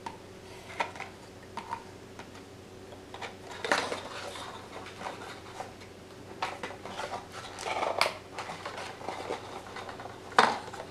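Handling noise of a GoPro Hero 5 camera and its white packaging insert, with scattered small clicks, taps and rustles as the camera, still stuck on top of its box, is turned and pulled. One louder rustle comes near the end.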